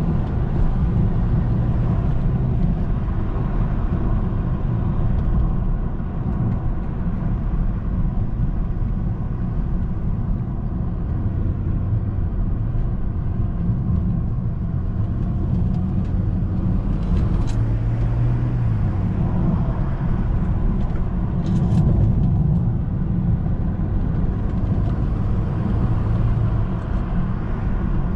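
2008 BMW 335i's twin-turbocharged N54 inline-six running while driving, with steady road noise; the engine note shifts a little as speed and throttle change.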